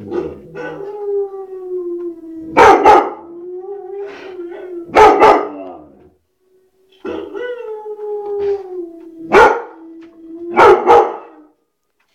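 A dog howling in two long, drawn-out calls of about five seconds each, sinking slightly in pitch, broken by loud sharp barks from a white shepherd, mostly in quick pairs.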